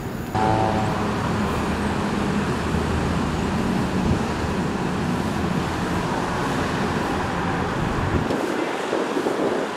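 Steady rumble of city road traffic that starts abruptly just after the beginning; its deep low part falls away about eight seconds in.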